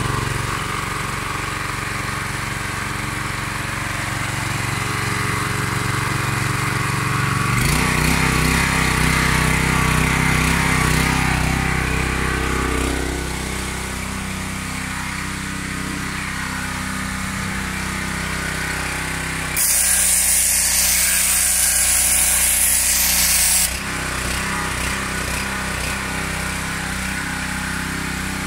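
Mechpro 7 hp single-cylinder petrol pressure washer running steadily just after starting; about a quarter of the way in its note changes and gets louder for several seconds. Near the end a loud hiss of the high-pressure water jet comes in for about four seconds, then stops, leaving the engine alone.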